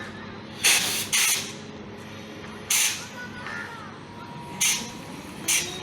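WAG 9 electric locomotive's compressed-air system blowing off in short, sharp hisses, five times, over a low steady hum. A faint rising tone comes in near the end.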